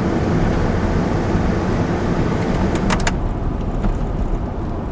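Chevrolet Suburban driving, its engine and road noise heard from inside the cab, steady throughout, with a few sharp clicks about three seconds in.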